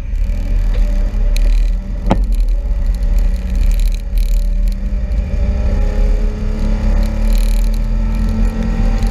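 John Deere 825M Gator utility vehicle driving, a steady low engine and drivetrain rumble, with a single sharp knock about two seconds in.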